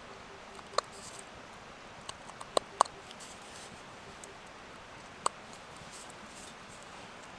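A handful of sharp, short clicks and knocks over a steady soft hiss: one about a second in, a quick cluster of three around the third second, and a last one a little past five seconds.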